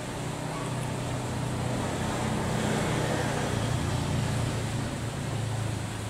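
Low engine drone of a road vehicle going by, swelling over the first few seconds, loudest around the middle and easing slightly near the end.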